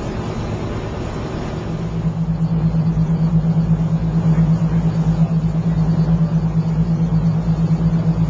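Fishing boat's engine running with a steady low hum, which grows louder and stronger about two seconds in.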